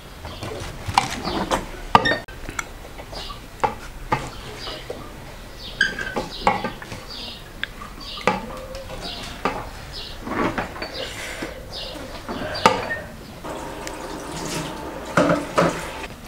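Shredded cabbage and green peppers being scooped by hand from a metal bowl and pressed down into a large glass jar for pickling: crisp rustling and crunching of the leaves, with irregular clinks and knocks against the glass and the bowl.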